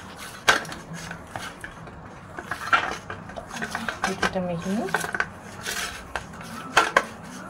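Steel plate knocking and scraping on a hard floor as hands rub and press on it, with several sharp metallic clinks.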